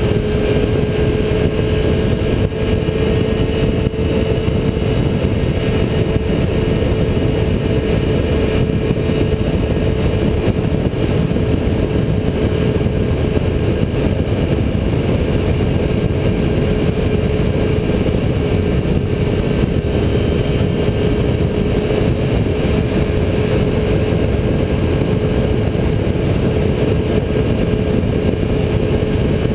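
Motorcycle cruising at steady highway speed: the engine holds one constant note under heavy wind and road rush.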